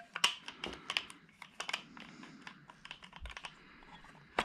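Irregular light clicks and taps from handling the parts of a 2001 Polaris Trail Blazer's pull-start recoil assembly, with a sharper click near the end.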